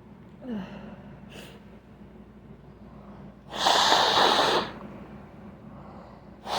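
A person's forceful nasal expulsion: a short catch of breath about half a second in, then about three seconds later a loud rush of air through the nose lasting about a second. A second blast begins right at the end.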